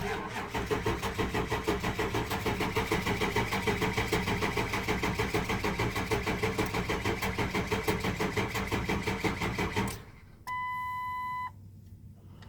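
2004 Ford F-250's 6.0L Power Stroke diesel being cranked by the starter for about ten seconds, with a steady rhythmic pulsing that never catches: a cold crank-no-start. The cranking stops abruptly, and shortly afterwards a steady electronic beep from the truck sounds for about a second.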